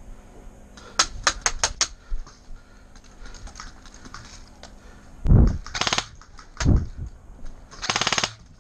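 Airsoft gunfire: a quick string of about six sharp shots about a second in, two heavy thumps around five and seven seconds, and a short rapid full-auto burst near the end.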